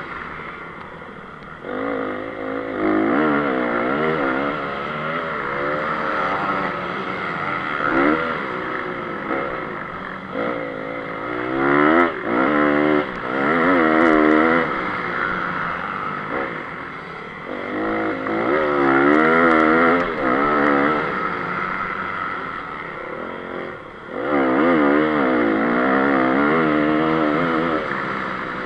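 Single-cylinder four-stroke engine of a 2014 Honda CRF 250 motocross bike, heard on board, revving up and falling back again and again as the throttle is opened and closed. The throttle shuts off briefly about a second and a half in and again near 24 seconds.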